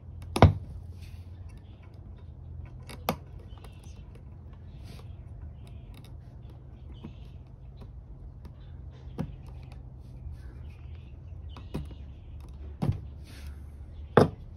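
Sharp plastic-and-metal clicks and knocks from a flathead screwdriver working a 180-degree push-to-connect water fitting loose, six in all, the loudest about half a second in, with light handling rustle between them over a steady low hum.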